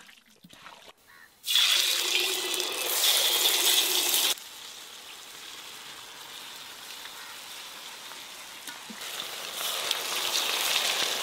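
Batter-coated murrel fish pakoda pieces deep-frying in hot oil in a kadai, a loud, even sizzle. It starts suddenly about a second and a half in, drops sharply to a lower sizzle a few seconds later, and grows louder again near the end as more pieces go into the oil.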